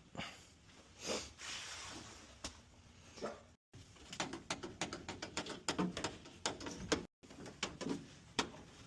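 Scattered knocks, clicks and short scrapes from hands-on installation work on the furnace, with a dense run of quick clicks in the middle. The sound breaks off twice into a moment of total silence where clips are cut together.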